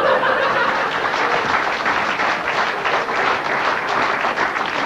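Theatre audience applauding: a dense, steady wash of many hands clapping.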